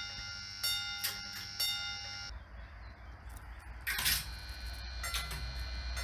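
Level-crossing installations switching on: first a Lo 57 crossing, giving ringing chime-like tones with repeated strikes less than a second apart, which stop a little past two seconds in. Then a sharp click about four seconds in, and the ringing starts again from a Lo 57 crossing with preceding traffic lights.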